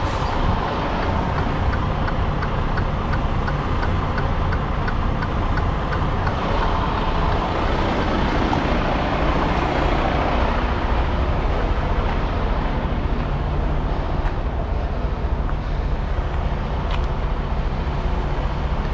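Freightliner semi tractor's diesel engine idling steadily. A fast, even ticking, about three ticks a second, runs over it for the first six seconds or so, then stops.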